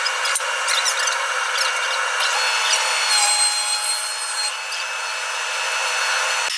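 Thickness planer running and cutting maple boards held in a tapering jig, a steady high-pitched rushing noise sped up by the time lapse. Some high whining tones join in the middle.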